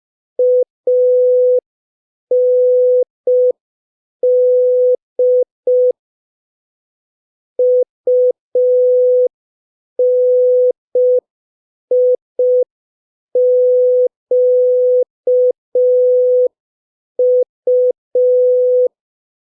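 Morse code practice tone, a single steady pitch near 500 Hz keyed in short dots and longer dashes, sent slowly at about 5 words per minute with gaps between letters and a longer pause about six seconds in.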